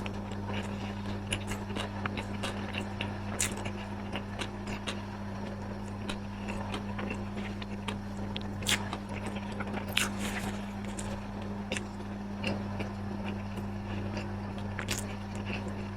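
Close-up eating sounds: repeated crunchy biting and chewing, many short crackles and clicks, over a steady low electrical hum.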